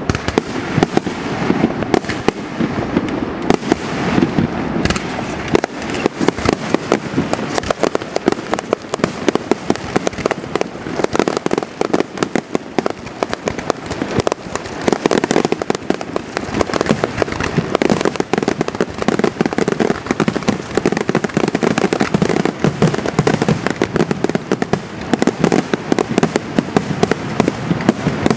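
Fireworks display: a dense, unbroken barrage of aerial shells bursting and crackling, many sharp bangs a second overlapping.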